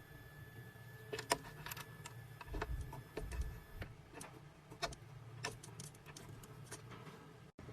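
2M2 Tank CNC key cutting machine and its key clamp: scattered irregular clicks and taps over a low hum, with a thin steady whine that stops about four seconds in.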